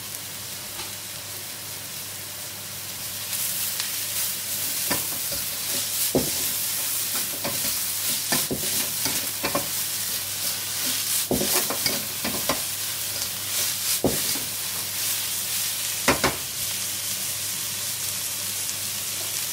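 Shredded cabbage and carrots sizzling in a hot wok while being stir-fried, the metal ladle scraping and clacking against the pan at irregular intervals. The sizzle grows louder about three seconds in.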